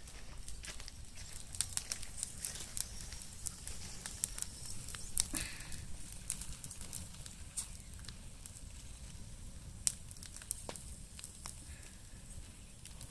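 A brush fire of leafy branches and dry leaves crackling, with irregular sharp pops. A few pops are louder, one about five seconds in and one near ten seconds.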